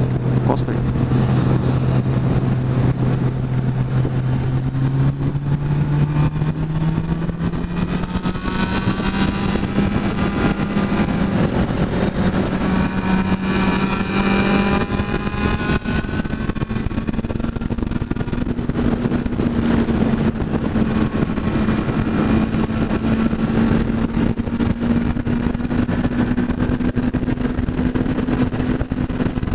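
Motorcycle engine running under steady throttle, its note rising over the first ten seconds and then climbing slowly as the bike gathers speed, with heavy wind rush on the microphone.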